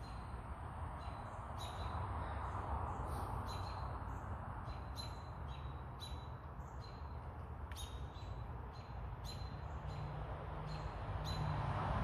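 A bird calls in short, high chirps about twice a second, over a steady buzzing hiss that grows louder near the end and a low hum. The buzz is the young cicada, the 'buzzer'.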